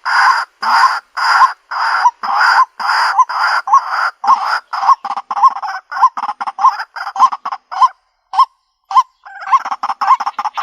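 White-breasted waterhen calling: a loud note repeated about twice a second, which turns into quicker, shorter notes with an upward hook. After a pause of about a second near the end, the calls resume more densely.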